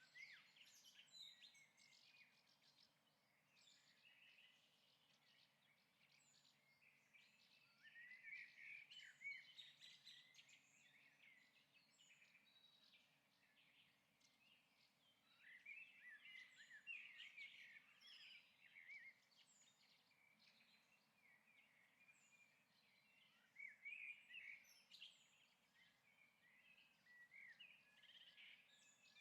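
Faint birds chirping from a stock sound-effect track: clusters of quick, high chirps that swell up every six to eight seconds over a quiet, even background.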